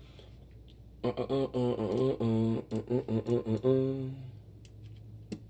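A man's low voice singing a short tune in held, note-like syllables for about three seconds, starting about a second in; a single sharp click near the end.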